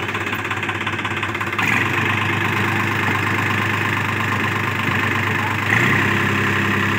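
New Holland 4710 4WD tractor's three-cylinder diesel engine running steadily under load while it pulls a rotavator through the soil. The sound steps up in loudness about a second and a half in, and the engine note rises slightly near the end.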